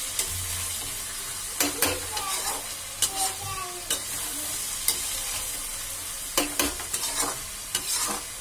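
A vegetable sabzi of peas and tomatoes frying in oil with a steady sizzle while it is stirred in the pan, the stirring utensil scraping and knocking against the pan several times.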